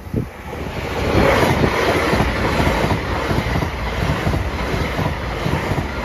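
Train passing at low speed, its wheels rumbling and clattering on the rails. It swells up over the first second, then holds steady.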